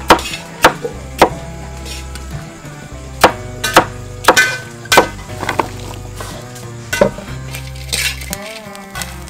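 Knife chopping on a wooden cutting board: about a dozen sharp knocks at uneven intervals, over background music with a steady low bass line.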